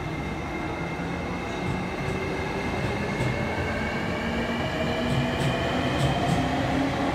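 JR East E653 series electric train accelerating away from an underground platform: the inverter-driven traction motors give a whine in several tones that rise steadily in pitch as it gains speed, over a rolling rumble. A few light clicks come in near the end.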